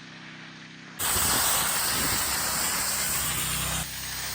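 Gas-powered pressure washer's engine running steadily, then the high-pressure jet from the wand blasting the interlock pavers with a loud hiss that starts suddenly about a second in. Near the end the spray drops to a quieter hiss.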